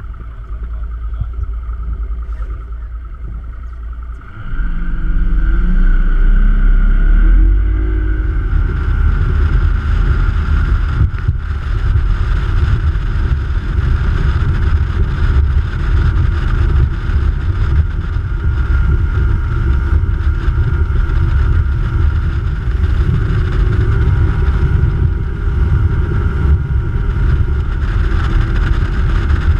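Motorboat engine throttling up about four seconds in, rising in pitch, then running steadily at cruising speed.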